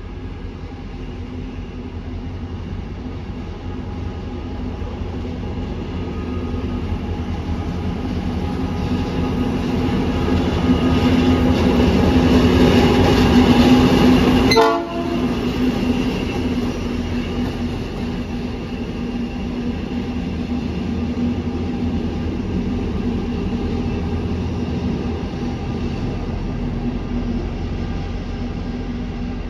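Rail Cargo Carrier series 2062 diesel-electric locomotive running light past at close range: a steady engine drone with a deep hum. It grows louder as the locomotive approaches, is loudest as it passes about halfway through, breaks off for a moment, then eases off a little as it moves away.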